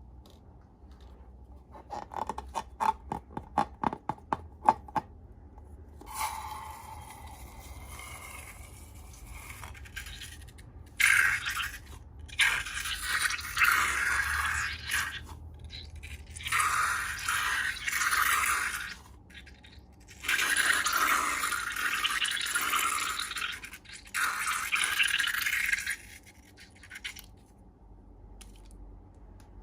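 Slime being scraped and worked in a slime-making session: first a quick run of sharp clicks, then several bursts of scraping, each a few seconds long.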